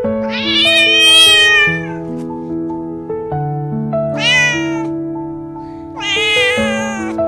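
A cat meowing three times, long drawn-out calls that rise and then fall in pitch, over background music of held notes.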